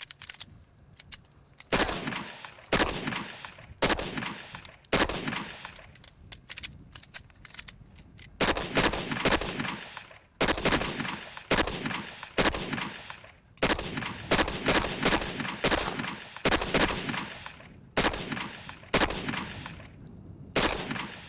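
Several Glock pistols fired by a row of shooters: about two dozen single shots at an uneven pace, starting a couple of seconds in, at times in quick strings about half a second apart, each with a short echoing tail.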